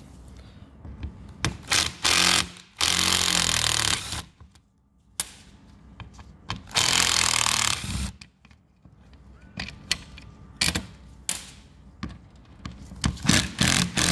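Cordless impact driver hammering in several bursts, the two longest about a second each, as it undoes the Torx T30 screws holding the electric window motor to the window regulator.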